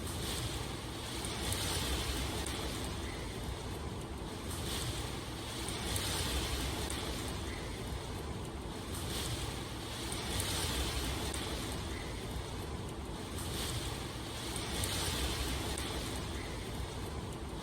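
Steady rushing water ambience that swells and eases every few seconds.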